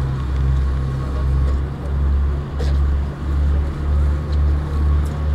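Tour boat's engine running under way, a steady low drone that starts to pulse about twice a second after a couple of seconds.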